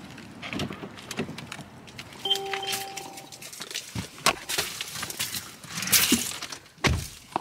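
Someone getting into a car: handling noises and clicks, a brief electronic beep about two seconds in, a few sharp knocks, then a heavy low thump near the end as the car door shuts.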